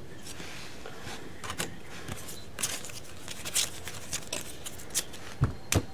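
Glossy foil trading cards (2016 Panini Phoenix football) being flipped and slid one behind another in the hands, with an irregular run of sharp little flicks and rustles as each card moves. Two dull thumps near the end.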